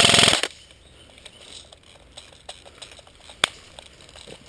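An airsoft electric gun firing full-auto, its rapid even rattle cutting off about half a second in. Then light scattered ticks and one sharp snap about three and a half seconds in.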